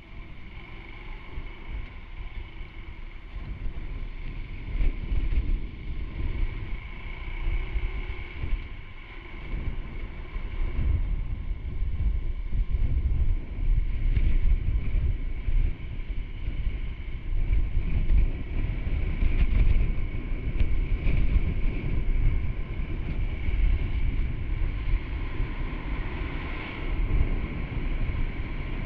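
Honda Super Cub C125's single-cylinder four-stroke engine and exhaust running as the bike is ridden, with wind buffeting the microphone. The low rumble rises and falls with the throttle.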